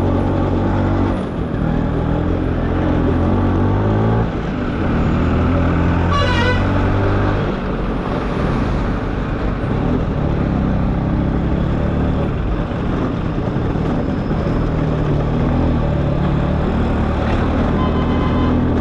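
Two-stroke LML NV scooter engine running under way in traffic, its note rising and falling with the throttle. A brief vehicle horn toot sounds about six seconds in.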